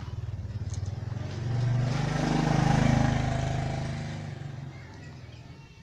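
A motor vehicle passing by, its engine growing louder to a peak about three seconds in and then fading away.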